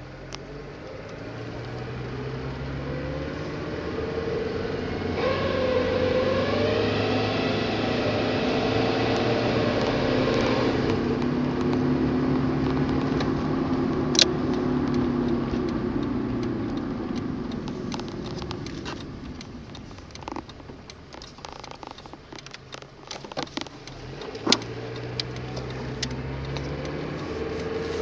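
1990 Honda Civic LX's 1.5-litre four-cylinder engine pulling away from a stop and accelerating, then easing off, with scattered sharp clicks and knocks in the later part. This is the weird sound that comes on from a stop and under acceleration.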